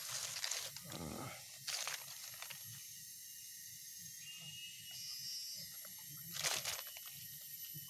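Dry leaf litter rustling and crackling in three short bursts: about half a second in, near two seconds, and about six and a half seconds in. A steady high hiss runs underneath.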